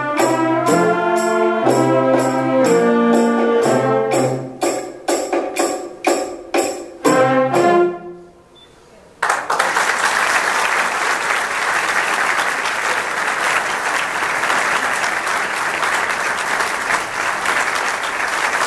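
Wind and percussion band playing the closing bars of a samba: brass chords over a steady percussion beat, breaking into short final stabs and stopping about eight seconds in. After a second of near quiet, the audience applauds.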